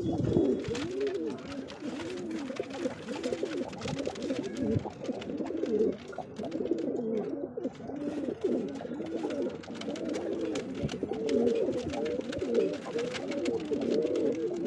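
Andhra high flyer pigeons cooing over and over, several low rising-and-falling coos overlapping one another.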